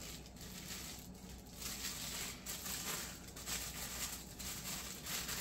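Irregular rustling and crinkling of packaging as statue parts are taken out and unwrapped.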